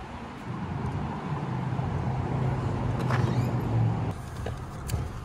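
Low, steady hum of a car idling, building slightly and stopping sharply about four seconds in, followed by a short click.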